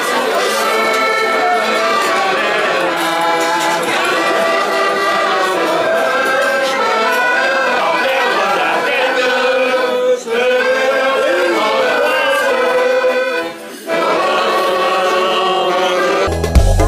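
A roomful of people singing a song together, many voices in chorus. Just before the end the singing gives way to music with a deep, steady beat.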